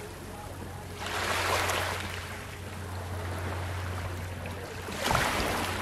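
Small, gentle waves lapping onto a shore of coral rubble and pebbles, washing in twice: about a second in and again near the end. A steady low hum runs underneath.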